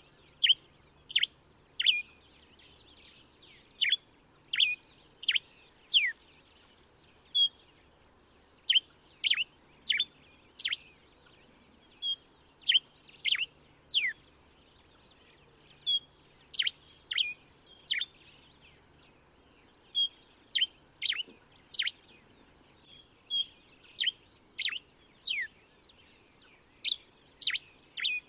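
Diuca finch singing: a long string of short, sharp whistled notes, each dropping steeply in pitch, coming a little faster than one a second. Twice a short, high, steady note sounds among them.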